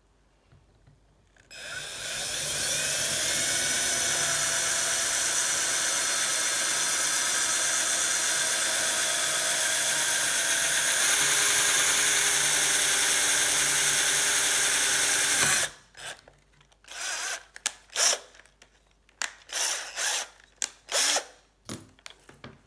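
Electric drill with a 4.5 mm bit enlarging a drilled hole in a vintage bicycle quick-release skewer. It starts about a second and a half in, runs steadily for about fourteen seconds and stops abruptly. A series of short clicks and knocks follows.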